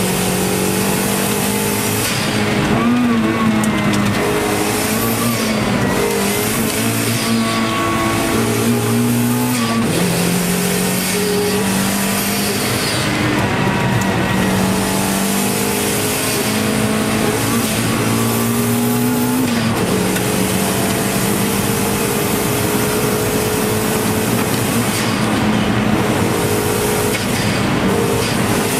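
Turbocharged Toyota MR2 AW11 engine at full throttle on a hill-climb run, heard from inside the cabin; the note climbs steadily and drops sharply at each gear change, several times over.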